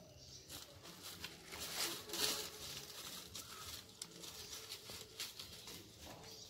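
Dry fallen leaves crackling and rustling underfoot: a quick, uneven run of crisp crunches, loudest about two seconds in.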